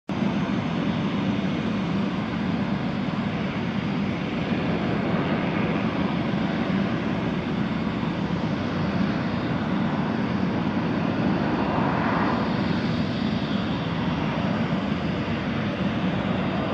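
Leonardo AgustaWestland AW139 twin-engine helicopter running steadily with its main rotor turning, a constant rotor and turbine noise, as it lifts off into a low hover near the end.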